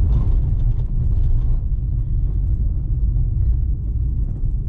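Steady low rumble of a car being driven, heard from inside the cabin: engine and tyre noise.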